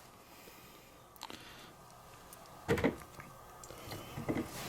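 Quiet room with a few faint clicks and one short, louder knock near three seconds in: a wire crimper and terminal being handled while a new terminal is crimped onto a wire.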